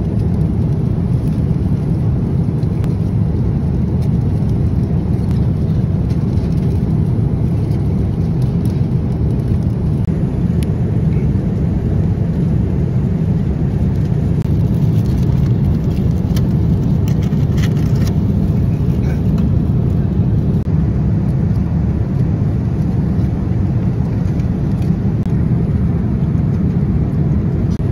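Steady low rumble of airliner cabin noise in flight, with a few faint light clicks about halfway through.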